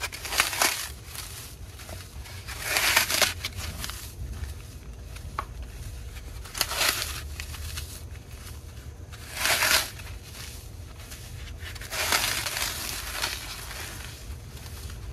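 Wet Sahara dry floral foam being crushed and crumbled by gloved hands in a plastic tub. There are about five loud bursts of crunching a few seconds apart, with softer crumbling between them.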